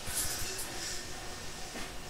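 Interior running noise of a Tobu 8000-series electric commuter train: a steady low rumble with a faint high hiss.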